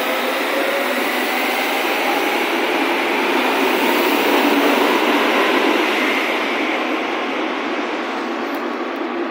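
Berlin U-Bahn H-series train pulling out of an underground station alongside the platform: loud rolling and running noise with a faint rising whine as it gathers speed. The noise is loudest about halfway through and thins out as the last car clears the platform.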